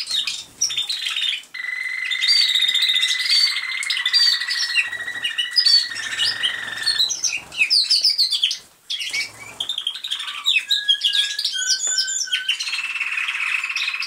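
Male American Singer canary singing in the style of a roller canary, with its beak closed. It sings a long, even roll lasting about five seconds with higher notes over it, then short chirped notes, then a second roll that begins near the end.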